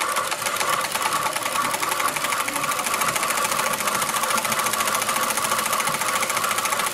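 Industrial straight-stitch sewing machine with a buttonhole attachment running steadily at speed, sewing a buttonhole in a rapid, even rhythm of needle strokes.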